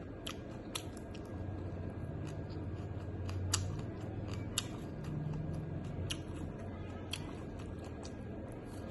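Close-up eating sounds: food being chewed, with a dozen or so sharp, crisp clicks and crunches scattered through, and a low hum underneath in the middle.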